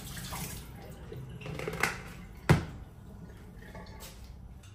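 Faint water draining and dripping from a plastic colander of rinsed, peeled potatoes into a stainless-steel sink, with one sharp knock about halfway through as the colander meets the steel draining board.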